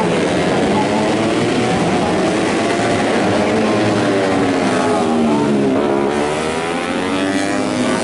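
Several tuned four-stroke underbone race motorcycles of up to 150cc at high revs going past, their engine notes overlapping and rising and falling in pitch, with a marked drop in pitch about five to six seconds in.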